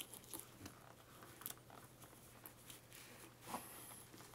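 Faint scratchy rustling and a few soft clicks as fingers press a fake-fur-covered foam microphone shield onto Velcro inside a motorcycle helmet's chin area, over a faint steady low hum.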